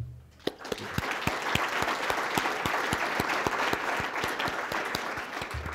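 Conference audience applauding: many hands clapping, setting in about half a second in and dying away near the end.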